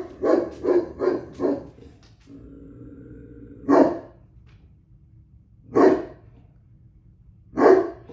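Great Pyrenees alarm-barking as a guard dog: a quick run of five barks, then single barks about two seconds apart. A steady low hum sounds for about a second between them.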